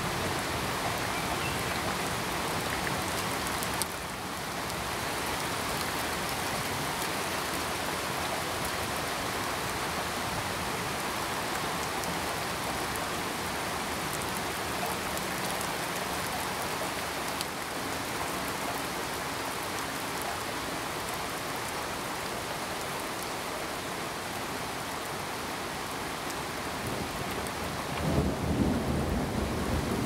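Steady, even rain. A low rumble swells about two seconds before the end.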